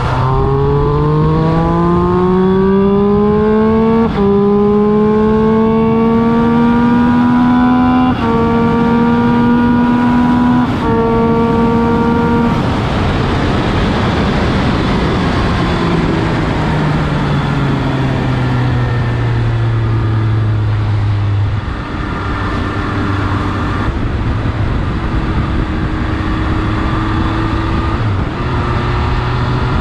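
Triumph Speed Triple 1200RS three-cylinder engine accelerating through the gears: its pitch climbs and drops back at each of four upshifts over the first dozen seconds, then a rush of wind noise covers the engine. The note then falls away as the bike slows, holds a lower steady note, and starts climbing again near the end.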